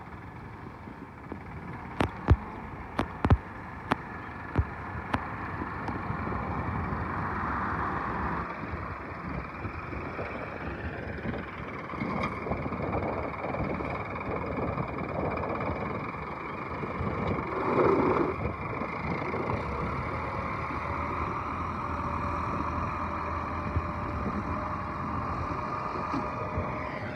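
Compact tractor engine running steadily while the front-end loader works, a little louder after the first few seconds, with several sharp clicks in the first five seconds.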